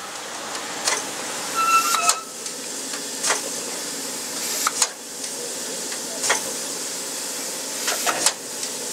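Standing steam locomotive hissing steadily, with short sharp clicks every second or so and a brief high tone about two seconds in.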